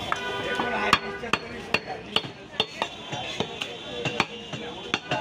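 Repeated sharp knocks of a butcher's blade striking a wooden log chopping block as beef is cut, about two to three knocks a second, somewhat uneven.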